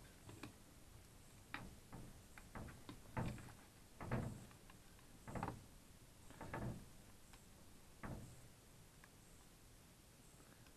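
Plastic two-way radio housing handled and fitted together by hand: a series of irregular, faint knocks and clicks, the strongest about four to seven seconds in, stopping about eight seconds in.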